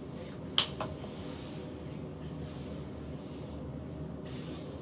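Fingers handling a plastic AirPods charging case: one sharp click about half a second in, a smaller click just after, and a brief soft rubbing near the end, over a steady low room hum.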